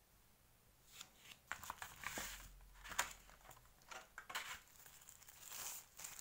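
Plastic wrapping crinkling and rustling in the hands, with sharp clicks, starting about a second in; the loudest click comes about three seconds in.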